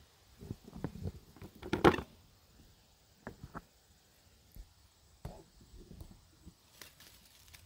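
Freshly picked green peppers dropped into a plastic bucket: a few knocks and rustles, with one loud hollow thump about two seconds in, then light scattered clicks and rustling.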